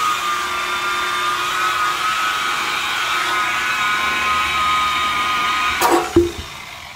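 DeWalt variable-speed rotary buffer running steadily at about 1700 RPM with a foam pad, compounding fresh paint: a steady whine. About six seconds in, a sudden sharp clack and a thump, and the buffer's whine stops.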